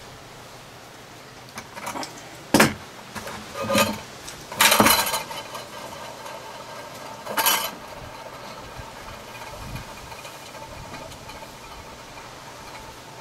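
A few sharp metallic clinks and knocks from steel wire, pliers and a tin can being handled on a plastic bucket: a loud one a couple of seconds in, a longer rattling cluster around the middle, and a last clink a few seconds later.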